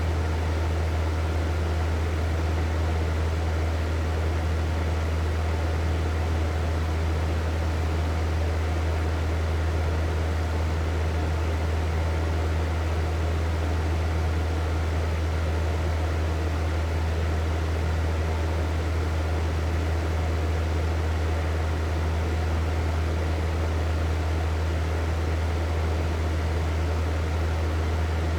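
Hair dryer running steadily, an even rush of blown air over a strong, constant low motor hum.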